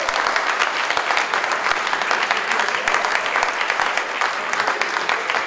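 Crowd applauding: steady, dense hand-clapping.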